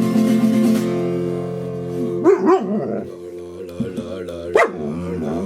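Acoustic guitar chord ringing out while a white shepherd dog sings along, with two short rising-and-falling howls about two seconds in; a new guitar strum comes near the end.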